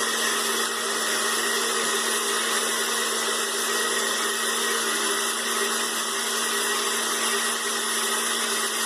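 Electric kitchen blender running steadily at speed, its motor holding one constant hum while it blends a liquid mix of aloe vera, lemon juice, onion and honey.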